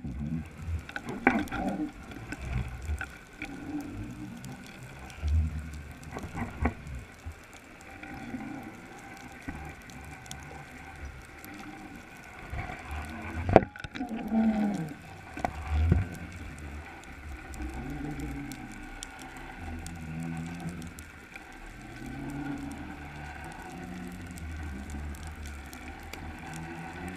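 Muffled underwater sound picked up by a camera housing on a bottom-fishing rig: low rumbling water noise with wavering moans that bend in pitch, and a sharp knock about halfway through followed by a falling moan.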